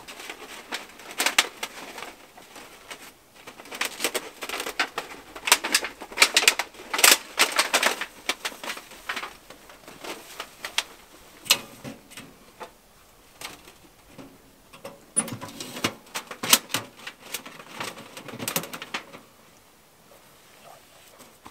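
Thin metal chimney pipe clattering and knocking in irregular spells as it is fed through the hot tent's stove jack and fitted to the small wood stove, with the pipe scraping against the tent canvas.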